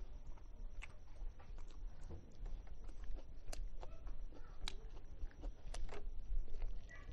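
Close-up eating sounds: roast chicken torn apart by hand and chewed, with scattered wet clicks and smacks from the mouth and the meat.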